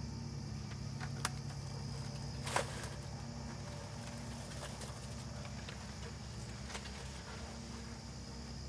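Quiet field ambience: insects hold a steady high drone over a low steady hum. Two small sharp clicks come about one and two and a half seconds in.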